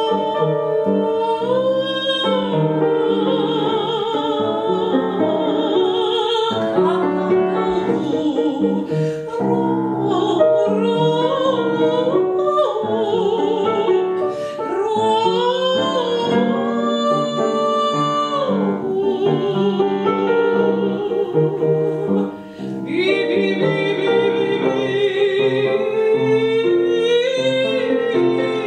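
A woman singing an improvised operatic aria with a wide vibrato and long held notes, accompanied by piano.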